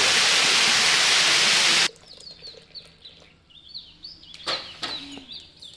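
Waterfall rushing loudly, cut off suddenly about two seconds in. Birds then chirp in quick, high, falling notes, with a couple of sharp knocks a little over halfway through.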